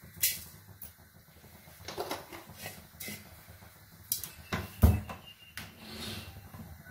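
Scattered sharp clicks and light taps, about one a second, from a metal kadai holding mustard seeds, urad dal and chana dal frying in a little oil for a tempering.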